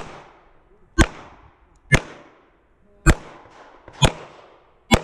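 Semi-automatic pistol fired at a steady pace, six sharp shots about a second apart, each followed by a short fading echo.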